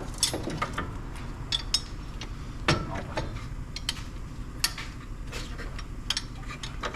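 Irregular light metallic clinks and clatter of hand tools and small parts being handled, a few sharper knocks among them, over a steady low hum.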